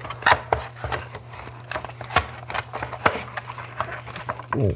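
Cardboard box packaging being handled: the flaps of a small inner box are pried open and plastic-wrapped contents lifted out, giving irregular taps, knocks and rustles.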